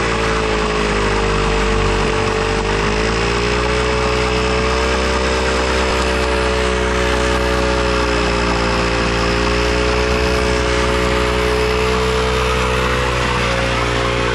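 KTM RC single-cylinder motorcycle engine held at high revs during a stationary burnout, the bald rear tyre spinning against the ground. The revs step up a couple of seconds in and then hold steady.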